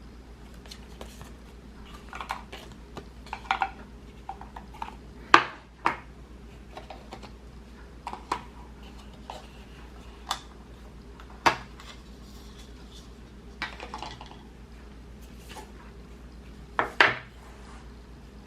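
Album contents and packaging being handled and set down on a hard surface: scattered clicks and light taps, with three louder knocks spread through.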